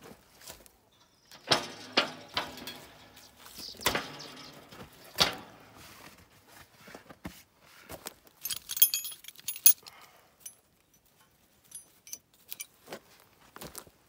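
Metal tools and plow-mount hardware being handled: scattered clanks and knocks, then a bright jingling rattle of small metal parts about two-thirds of the way through.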